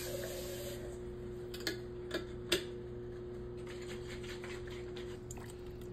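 Kitchen tap running water into a glass sauce jar, with a steady hum from the tap and a few light clicks about two seconds in.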